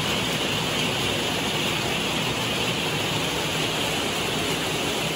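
Heavy rain pouring down: a steady, dense hiss.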